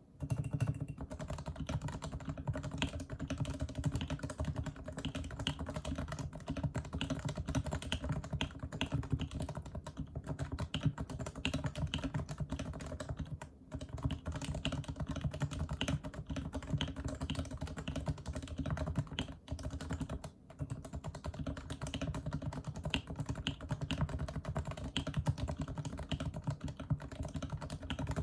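Leopold FC660C keyboard with unsilenced 45g Topre electrostatic-capacitive rubber-dome switches, lubed with 3204, being typed on in a fast, steady run of keystrokes. The typing pauses briefly about 13 seconds in and again around 20 seconds in.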